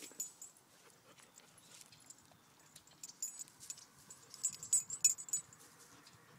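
Light metallic jingling: a run of quick, sharp clinks from about three to five and a half seconds in, after a few scattered clicks.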